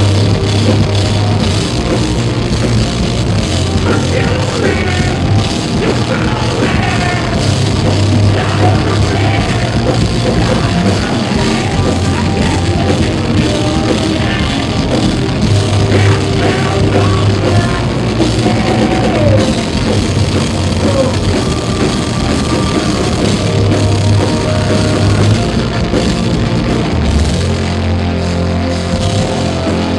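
A live metal band playing: distorted electric guitars, bass guitar and a drum kit at full volume, in a rough, low-quality recording.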